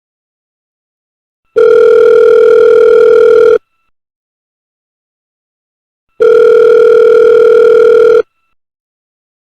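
Telephone ringing: two steady electronic rings of about two seconds each, with a silent pause of about two and a half seconds between them.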